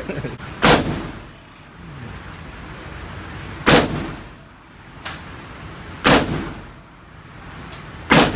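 Four loud gunshots, fired one at a time about two to three seconds apart, each with a short ringing echo. A fainter shot comes about five seconds in.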